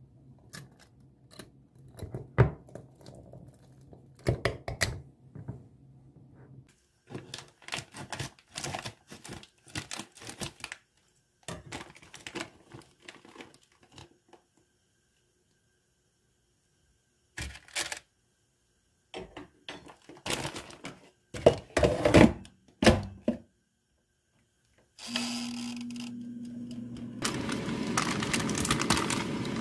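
Kitchen handling sounds: the glass lid of a swing-top jar clicking and knocking shut, then scattered clicks and a cluster of louder knocks of tongs and the air fryer basket as frozen vegetable tempura is loaded. Near the end a steady whirring sets in, along with the crinkle of a plastic food bag being handled.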